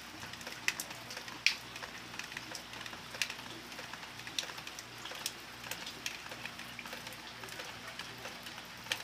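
Heavy rain falling steadily, with irregular sharp ticks of drops striking a hard surface close by.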